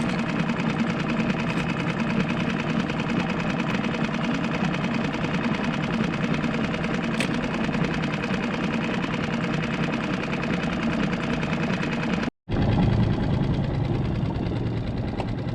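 A small boat's outboard motor running steadily. It cuts out for a split second about twelve seconds in, then runs on with a lower note.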